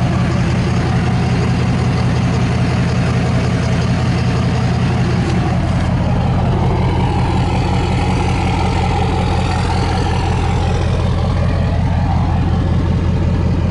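Ford 6.7-litre Power Stroke V8 turbodiesel of a 2011 F-250 idling steadily.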